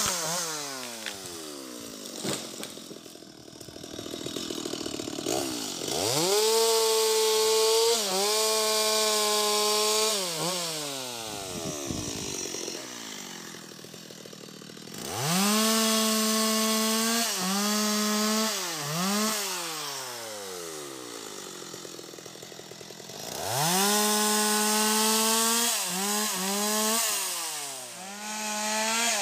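Stihl MS 250 two-stroke chainsaw revving to full throttle three times for a few seconds each, with short throttle blips after each run and low idling in between.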